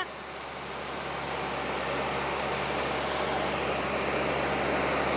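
Compact tractor's diesel engine running steadily while its front-loader forks lift and tip a trailer loaded with heavy wet hay. It gets louder over the first couple of seconds, then holds steady.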